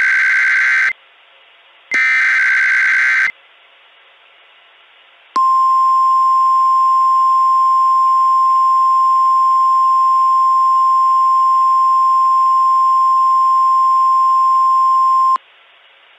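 Emergency Alert System alert signal from a NOAA Weather Radio broadcast. Two short, harsh, buzzing data bursts of the SAME header come first. After a pause of about two seconds, a single steady alert tone sounds for about ten seconds and cuts off sharply.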